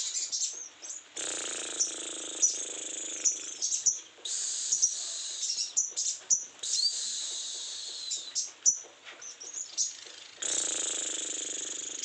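Sogon songbird singing hard: long stretches of fast, dense, scratchy chattering broken by sharp single calls and short pauses. This is the heavy song of a bird the keeper calls overly in breeding condition.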